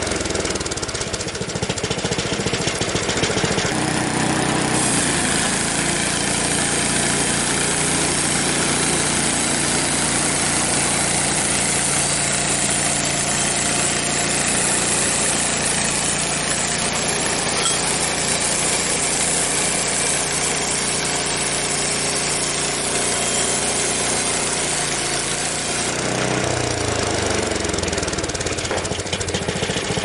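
Frontier OS23 portable bandsaw mill running, its small engine driving a new band blade through a log, a steady engine note with the hiss of sawing. The sound changes about five seconds in, as the cut settles in, and changes again near the end.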